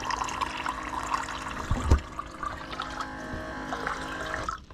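Electric jug-top water dispenser pump running, filling a glass with a steady pour of water, and a single bump about two seconds in. The pump and pour cut off suddenly near the end.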